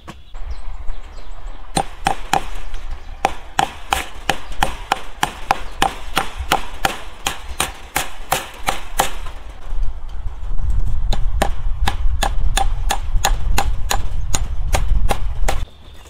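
A hammer striking repeatedly at a wooden fence post to fasten chain-link mesh, quick even blows about three a second. There are two runs of blows with a short pause near the middle, and a low rumble under the second run.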